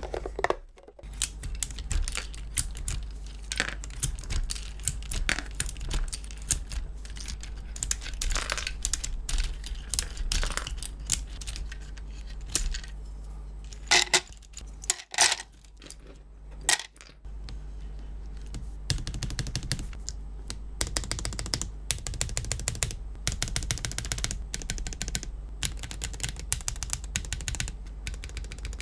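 Ceramic keycaps clicking and clinking as they are handled and pressed onto the switches of a mechanical keyboard. The clicks are irregular at first, then quicker and denser through the second half.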